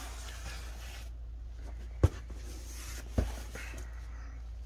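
Two dull knocks about a second apart, the first louder: boxed packages being set down on a table, over a steady low hum.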